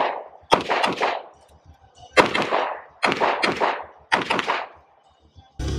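Handgun shots fired in quick groups about a second apart, each ringing out with a long echo. Guitar music cuts in abruptly near the end.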